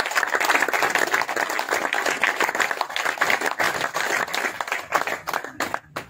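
A group of people clapping in applause, a dense patter of hand claps that stops abruptly near the end.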